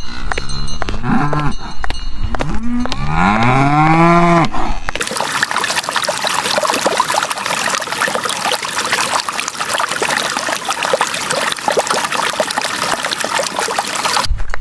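Cattle mooing, three drawn-out calls that rise and fall in pitch in the first few seconds. A dense, steady hiss follows and stops abruptly near the end.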